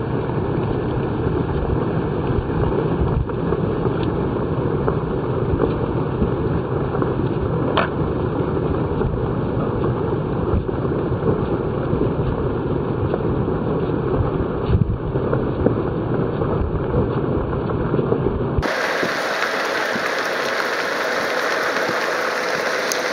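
Wind rumble on the microphone of a moving camera, a steady low noise with no barking. About nineteen seconds in it cuts suddenly to a thinner, higher hiss.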